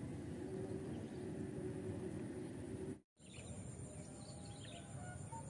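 Steady low outdoor background noise. About three seconds in it cuts out for an instant, then small birds chirp a few times over quieter ambient sound.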